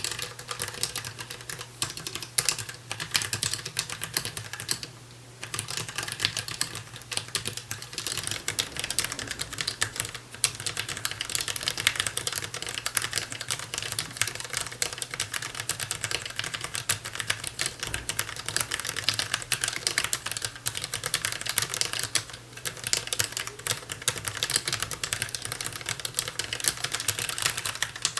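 Fast, continuous typing on a DAREU EK820 low-profile mechanical keyboard with Kailh LP red linear switches: a dense stream of key clacks, with brief pauses about five seconds in and again past twenty seconds.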